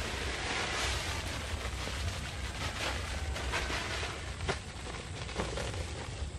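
Steady outdoor background noise: an even hiss over a low wind rumble on the microphone, with a few faint ticks.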